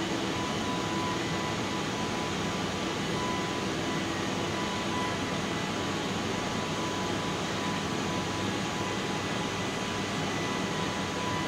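Steady background noise: an even hiss with a low hum and a faint thin high tone, unchanging throughout.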